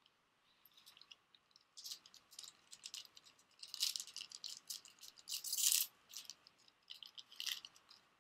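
Cardfight!! Vanguard foil booster pack wrapper crinkling as it is handled and torn open by hand: a crackly rustle, loudest about four and five and a half seconds in.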